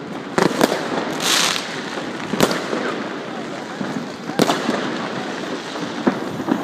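Many New Year fireworks and firecrackers going off around at once: sharp bangs every second or two over a continuous crackling din, with a brief hiss about a second in.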